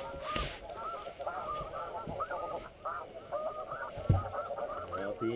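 Snow geese calling: a dense chorus of many short, overlapping honks. A single thump comes about four seconds in.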